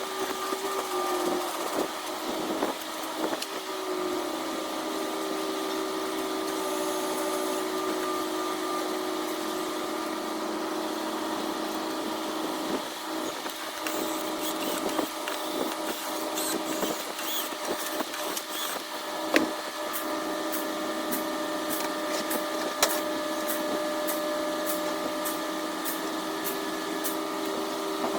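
Sharp clicks of a wrench as the transmission housing bolts are torqued down one after another, coming about twice a second in the second half, over a steady hum.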